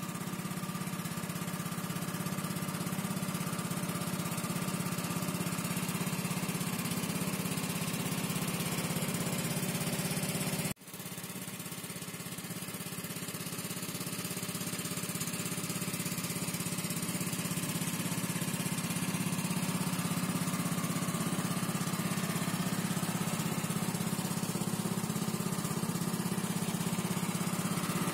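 Small engine in the floor well of a wooden river longboat, running steadily as the boat travels, with a continuous low drone. The sound drops out sharply for a moment about eleven seconds in, then picks up again.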